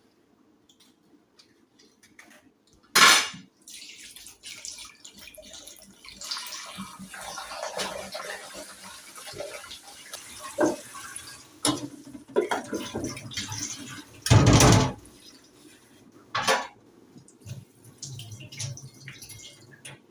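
Kitchen work sounds: dishes and utensils clinking and knocking, with water running briefly from a tap for a few seconds in the middle, and two louder short clatters, one near the start and one past the middle.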